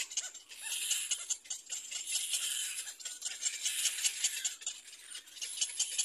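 Little black cormorant chicks begging for food: rapid, raspy rattling calls in bursts of a second or so, with short pauses between.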